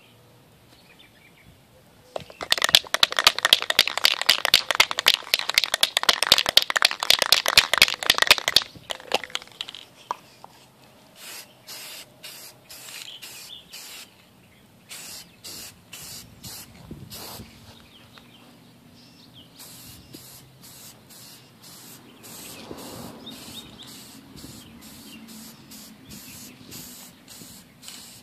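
Aerosol spray-paint can shaken hard, its mixing ball rattling fast for about six seconds. Then it is sprayed in a long string of short hissing bursts, each under a second.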